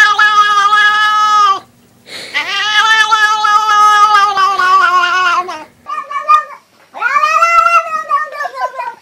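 Domestic cats giving weird, long, drawn-out meows close to a yowl, one after another: a long call that stops about one and a half seconds in, a longer one of about three seconds, a short one, then another long call from a second cat near the end.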